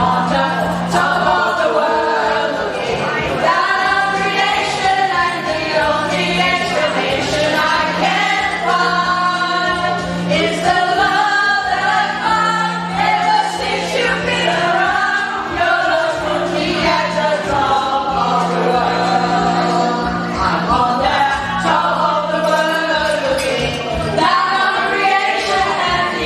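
A choir singing a song, with a low held accompaniment note that sounds in stretches of a few seconds under the voices.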